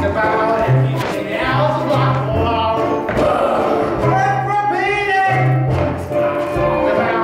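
Stage-musical number performed live: cast voices singing over a pit orchestra, with a bass line stepping between low notes.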